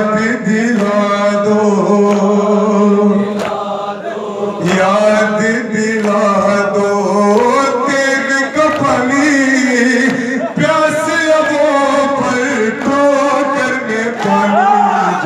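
A male voice chanting a noha through a microphone and loudspeakers, with the crowd chanting along, over the sharp slaps of matam chest-beating about once a second.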